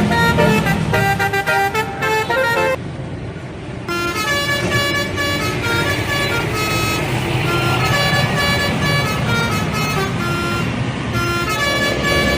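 Indonesian bus telolet horn, a multi-trumpet air horn playing a quick melodic run of changing notes. The notes break off for about a second, three seconds in, and then start again, over the bus's engine and road noise.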